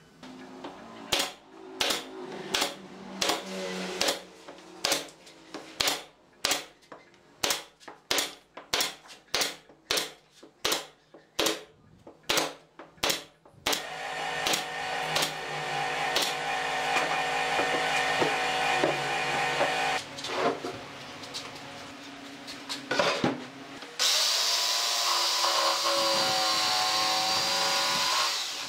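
Pneumatic brad nailer shooting brads into a wooden frame, sharp shots about two a second, followed by a steadier mechanical hum with fainter shots. Near the end a Makita jigsaw starts up abruptly and cuts steadily through a wooden board.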